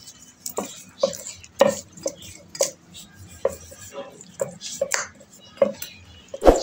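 Hand-mixing a raw steak in marinade in a stainless steel bowl: irregular wet slaps and squelches of the meat with knocks against the metal bowl, roughly two a second, the loudest knock near the end.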